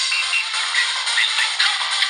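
A preloaded ringtone on an LG EnV3 phone playing a dense musical tune that is thin, with almost no bass.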